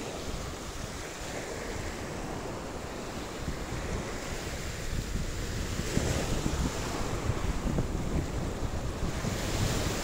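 Sea surf washing onto a beach, with wind buffeting the microphone. The wash swells louder about six seconds in and again near the end.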